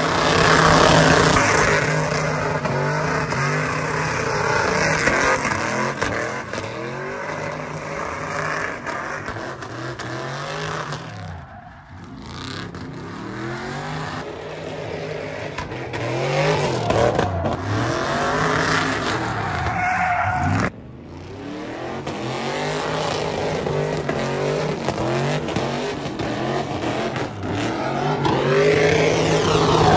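Chevrolet Silverado pickup doing donuts: its engine revs rise and fall over and over while the rear tires squeal and skid on the asphalt. The sound dips sharply twice in the middle.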